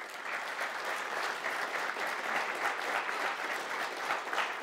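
Conference audience applauding: many people clapping together, starting just after the closing "thank you" and holding steady.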